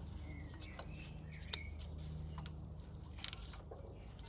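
Faint, scattered clicks and light handling noises of hands and tools on the mower, over a low steady hum, with a few short high chirps.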